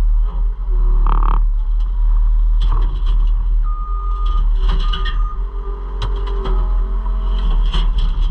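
Caterpillar 256C skid steer's diesel engine running steadily while its rock grapple drops a load of concrete debris into a dump truck bed. Several sharp clattering knocks sound in the second half as the chunks land, with a brief high whine twice near the middle.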